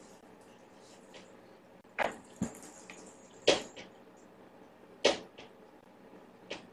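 Sharp clicking knocks on a hard surface: three loud ones about a second and a half apart, with a few fainter ones between, each ringing briefly.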